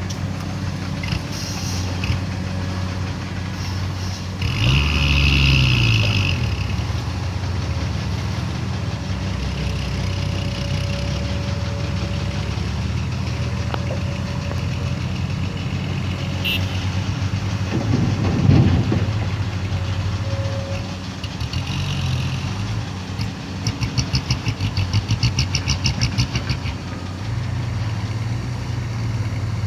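Engine of a soil-laden truck running steadily, with a rise and fall in pitch about five seconds in, a louder swell past the middle, and a fast, even pulsing for a few seconds near the end.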